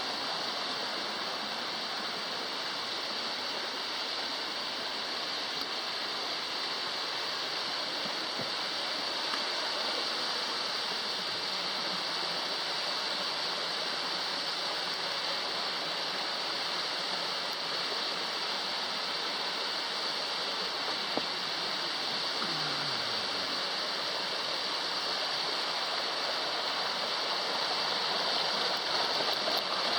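Cascading mountain water rushing steadily, an even hiss with no breaks, growing slightly louder near the end.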